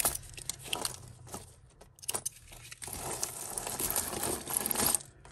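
A pile of costume jewellery (metal chains, beads and faux pearls) clinking and jangling as hands rummage through it. A few separate clicks come first, then about two seconds of continuous jangling that stops abruptly near the end.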